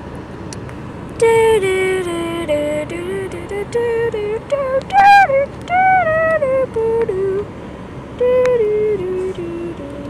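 A voice singing a slow melody of held notes that step down in pitch, starting about a second in, over a low steady rumble from a car's interior.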